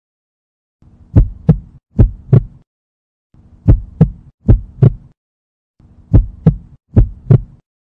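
Heartbeat sound effect: low thumps in close double beats, two double beats at a time, repeating about every two and a half seconds over a low hum, with silence between groups.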